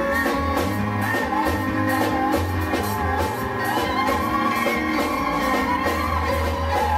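Live gospel music: a group of women singing into microphones over a band with a drum kit, guitar and a steady deep bass line.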